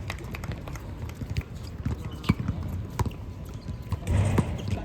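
Basketball game play: a ball bouncing and players' shoes on the court, heard as scattered sharp knocks, with a louder burst of noise about four seconds in.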